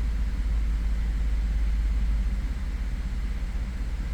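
Ford F-150's 3.5 L EcoBoost V6 idling with a steady low rumble. It runs evenly: the misfire is gone after the PCM was replaced.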